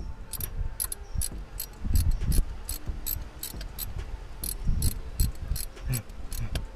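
Socket wrench ratcheting steadily, about three clicks a second, winding out a bolt that has just been broken loose, with dull knocks of handling underneath.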